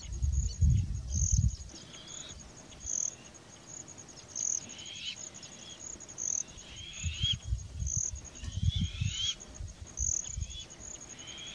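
Animal alarm calls warning of a predator: short chirps that rise and fall, repeated again and again, over a steady high insect-like trill that swells about once a second. A low rumble comes and goes near the start and again about seven to nine seconds in.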